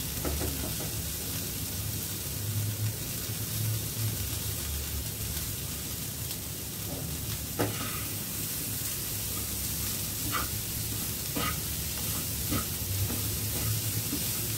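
Boiled green peas and spice masala sizzling in a frying pan over a gas flame while being stirred with a wooden spatula, with a steady hiss and a few short taps and scrapes of the spatula against the pan in the second half.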